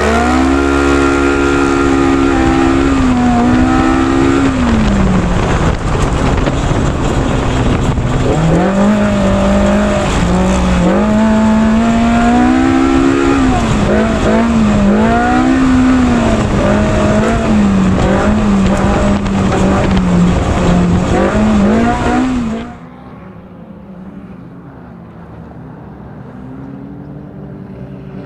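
Race UTV's engine revving hard, its pitch repeatedly climbing and dropping as the throttle comes on and off. About 23 seconds in it cuts to a much quieter, duller engine sound.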